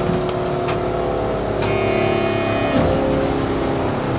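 Astram Line rubber-tyred guideway train standing at a station, its onboard equipment giving a steady hum of several tones, with a few clicks near the start and a brief high electronic tone about halfway through.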